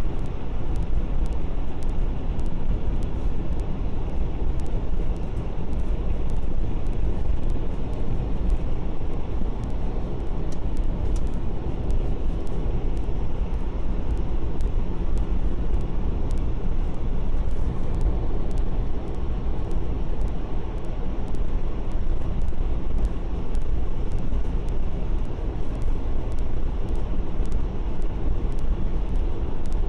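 Steady low rumble of a car driving on a snowy road, heard from inside the cabin: engine and tyre noise at an even speed, with faint scattered ticks.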